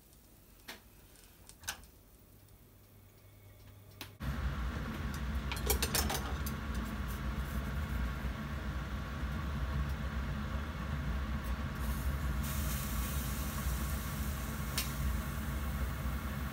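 Two faint clicks, then about four seconds in a steady low mechanical hum with a rushing hiss starts abruptly and keeps going, with a few clicks over it.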